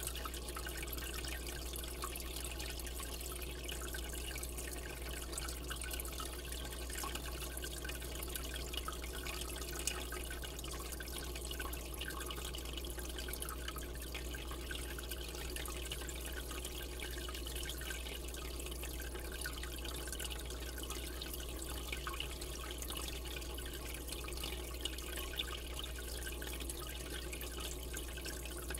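Aquarium water trickling and dripping steadily, with a few louder drips, over a low steady hum.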